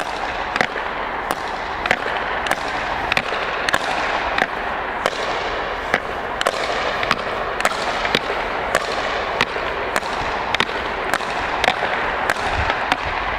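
Hockey sticks striking a puck in rapid one-touch passes back and forth: a sharp clack about every two-thirds of a second, over a steady hiss.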